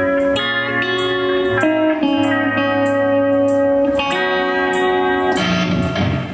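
Live band music with held chords that change every second or so. The chords stop about five seconds in.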